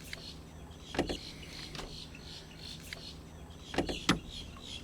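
Three short sharp knocks, one about a second in and two close together near the end, over outdoor lake ambience with faint bird chirps.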